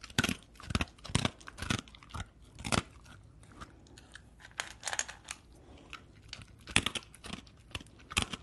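Chewing with loud, irregular crunches, about a dozen strokes spaced unevenly, with a quieter stretch of softer chewing in the middle. It is the sound of a mouth biting and grinding food.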